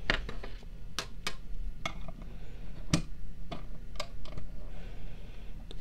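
Irregular metallic clicks and taps, about a dozen, of coaxial RF connectors being handled: a dummy load taken off an SWR/power meter and a right-angle adapter with an antenna fitted in its place.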